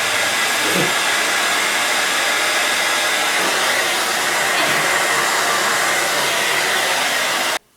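Steady loud hiss of noise across all pitches, which cuts off suddenly near the end.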